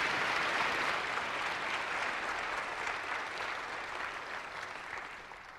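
Audience applauding, the clapping fading away steadily toward the end.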